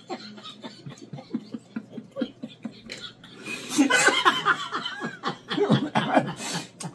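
Two people laughing: quiet chuckling, then louder bursts of laughter about four seconds in and again near the end.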